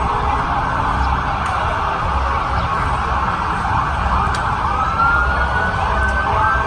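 An emergency vehicle siren wailing, its pitch rising slowly in the second half, over low rumbling street noise.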